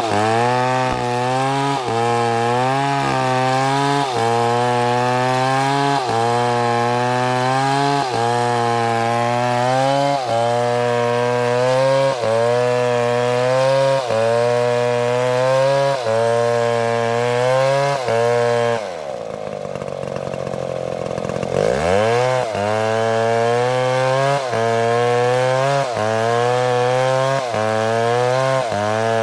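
Chainsaw at high revs cutting through a tree trunk, its pitch sagging and recovering every second or two as the chain bites into the wood. About two-thirds of the way through, the engine drops back to a low idle for a couple of seconds, then revs up again and goes on cutting.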